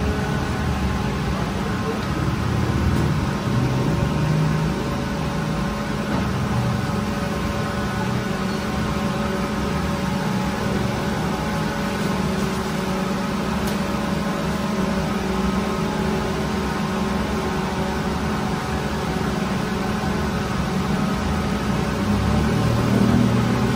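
Steady hum of bakery machinery, with several steady tones running under it and no breaks.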